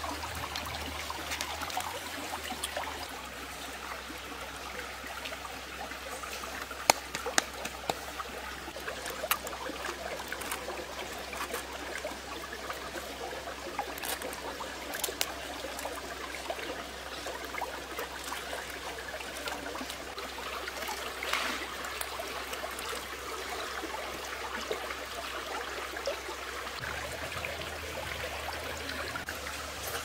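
Shallow rocky stream trickling and flowing steadily over stones, with a couple of sharp clicks about seven seconds in.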